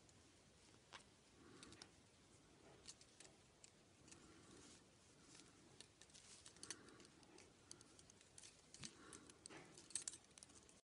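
Faint, irregular clicking and tapping of thin metal double-pointed knitting needles as stitches are knitted in the round, over quiet room tone.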